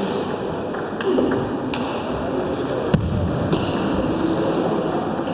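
Table tennis balls clicking off bats and tables, a few scattered hits from several tables in play, over the steady din of a busy sports hall with distant voices. One sharper knock about three seconds in.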